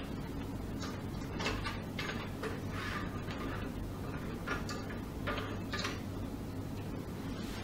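Short scrapes and clicks from the jointed arm and drum applicator of a pulsed shortwave diathermy unit being adjusted into position over a steady low hum.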